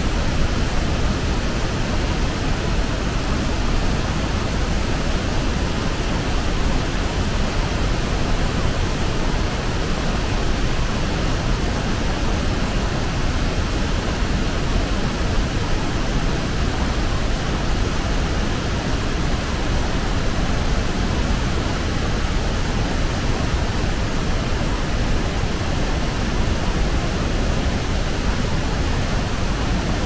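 Waterfall rushing in a steady, unbroken roar of falling water.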